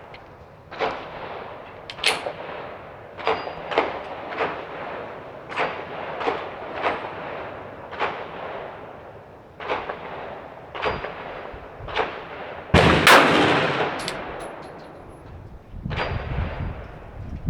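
Glock 30S .45 ACP pistol fired shot after shot, irregularly spaced about a half second to a second apart, each crack followed by a short echo; the loudest shot comes about 13 seconds in.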